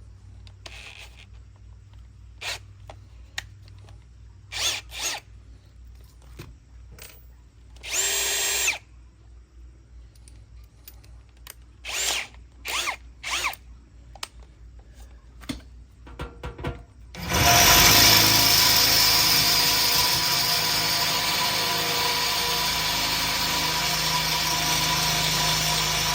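A few handling knocks and a short spin of a power drill about 8 seconds in, then from about 17 seconds the drill running steadily at speed, boring a 1/4-inch bit through the metal lid of a Weber Smoky Mountain smoker to enlarge a smaller hole.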